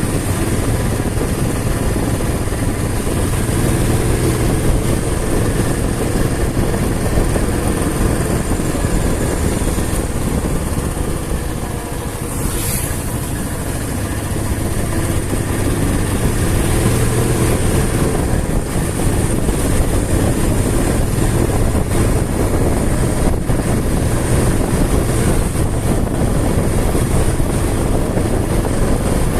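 Motorcycle engine running steadily while riding, with continuous road noise; the level dips briefly about halfway through.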